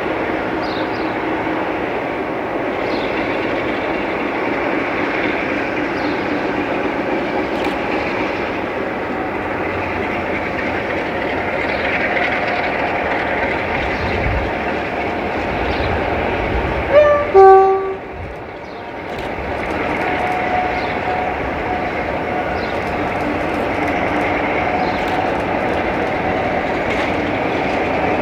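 Sulzer 12LDA28-C twin-bank diesel engine of a Class 47 locomotive working hard as it pulls away uphill. The horn sounds once briefly, loud, a little past the middle.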